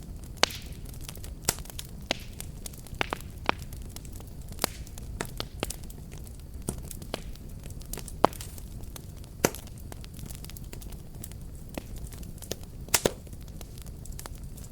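Wood fire burning in a fireplace: irregular sharp crackles and pops, a few louder snaps, over a steady low rush of the flames.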